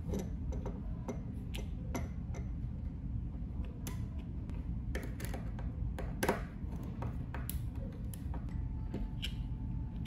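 Irregular small clicks and ticks of a screwdriver and fingers working the terminal screws and wires of a limit switch, with one sharper click about six seconds in. A low steady hum lies underneath.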